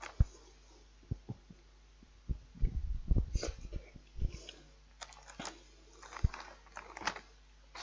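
Fork clicking, tapping and scraping in a plastic microwave-meal tray of noodles, in scattered small knocks with brief rustles.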